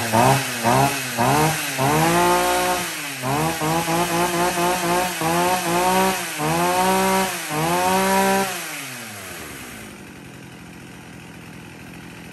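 40cc Husqvarna two-stroke chainsaw, freshly started and revved again and again on the throttle: several quick blips, then longer held revs that rise and fall back. About nine seconds in it drops to a much quieter run. The engine runs cleanly, which the seller calls extremely smooth ("êm ru").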